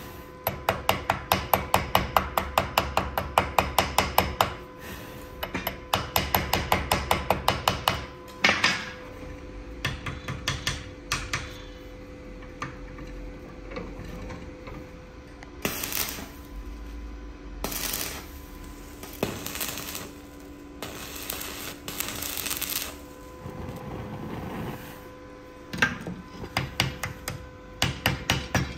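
Hand hammer striking a length of steel wire rope being forged into a knife. The blows come in quick runs of about seven light strikes a second, with pauses and scattered single strikes between the runs.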